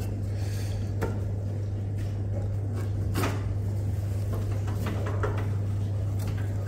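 Light knocks, clicks and rubbing as gloved hands handle the copper pipes and metal casing inside an opened combi boiler, about three small knocks over a steady low hum.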